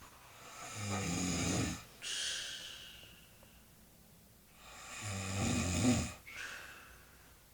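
A woman snoring in her sleep: two snores about four seconds apart. Each is a low rattling snore on the in-breath followed by a breathy out-breath.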